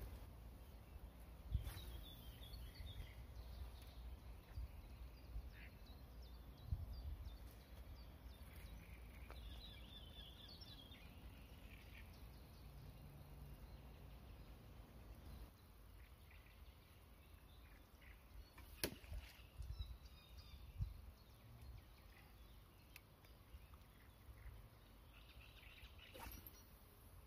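Quiet pond-side ambience: a low rumble of wind on the microphone, with birds chirping now and then. A few sharp clicks from the spinning rod and reel come through, one as the rod is cast near the end.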